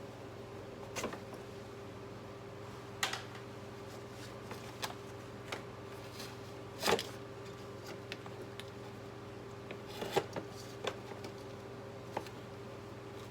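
Scattered light clicks and taps of tools and small carburetor parts being handled as a two-stroke scooter carburetor is taken apart, at irregular intervals, over a steady low hum.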